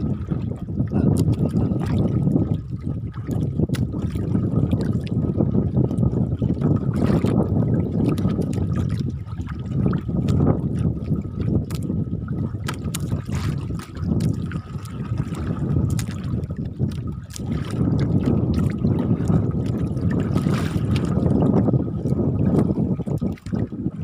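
Strong sea waves sloshing and slapping against a small boat's hull, with wind buffeting the microphone and frequent sharp knocks, under a faint steady whine.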